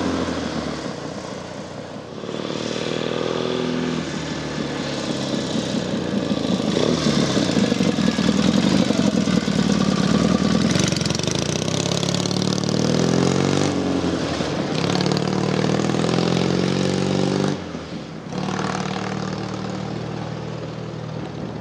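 Freshly rebuilt Matchless G12 650 cc parallel-twin motorcycle being ridden, its engine note rising in pitch and dropping away again several times as it accelerates through the gears. It is loudest as it passes close by about nine seconds in.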